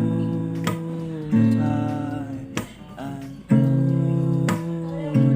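Acoustic guitar strumming slow chords, a chord struck about every second and left to ring.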